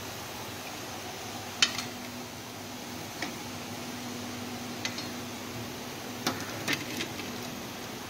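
A metal slotted spoon clinking against the pan and plate about six times, loudest about one and a half seconds in, over a steady hiss of hot frying oil.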